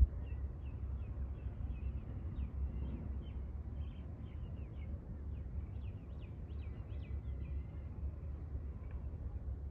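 Many small birds chirping in quick short calls, thinning out near the end, over a steady low rumble of wind on the microphone.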